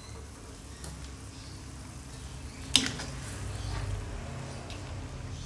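Coconut-milk vegetable curry simmering in a wok, stirred with a metal spatula, with a low steady hum underneath. A single sharp clink of the spatula against the wok about three seconds in.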